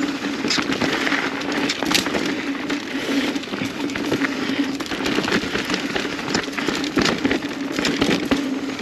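Mountain bike rolling down a dirt trail: tyres crackling over gravel and the bike rattling with many sharp clicks, over a steady hum.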